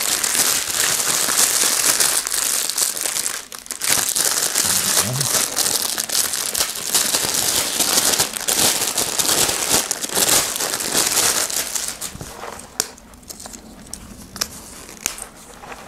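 Clear plastic packaging bag crinkling and crackling as a cap is unwrapped from it by hand. The crinkling is dense and continuous for about twelve seconds, then drops to a few scattered crackles near the end.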